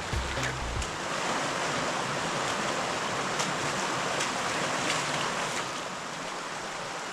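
Creek water rushing over rocks, a steady hiss. Low background music stops about a second in.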